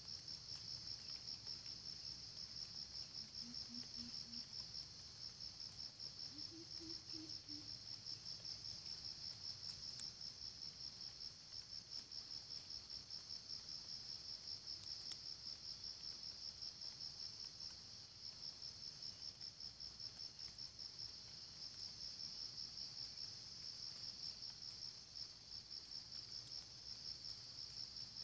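Steady high-pitched insect chorus, a fast, even pulsing trill that runs without a break. Two faint, short low calls sound about four and seven seconds in.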